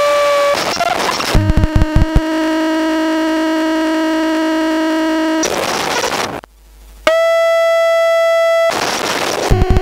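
DIY modular synthesizer built around a hEX four-way signal switcher, stepping through its patched sources in a repeating cycle: a held buzzy tone, a burst of noise, a quick run of clicks, a lower buzzy tone held for about three seconds, another noise burst, a short gap, then a higher, brighter tone and more noise and clicks near the end.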